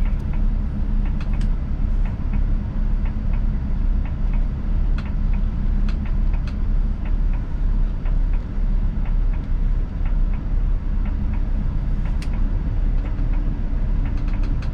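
Inside a motorcoach's cab: the steady low drone of its engine and road noise as the bus drives slowly and turns, with scattered light ticks.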